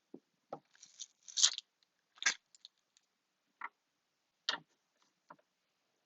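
Scattered short crinkles and clicks of tape and small craft pieces being handled, about seven in all, the loudest about one and a half and two and a half seconds in.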